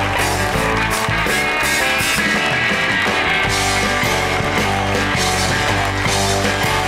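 Studio house band playing a rock-style instrumental with drums and bass; the bass drops out for a couple of seconds and comes back in about halfway through.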